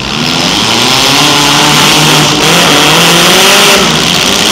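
Four-cylinder demolition derby cars' engines revving in the arena, several engine notes rising and falling together.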